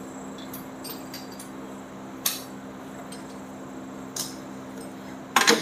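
Light metallic clicks and taps of tools and engine parts being handled during engine assembly: one sharp click a couple of seconds in, a fainter one later, and a quick cluster near the end, over a steady low hum.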